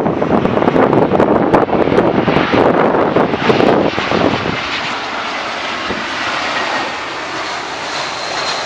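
Airliner passing low on approach to land, a loud steady rushing engine noise with a high whine coming in near the end. Wind buffets the microphone during the first few seconds.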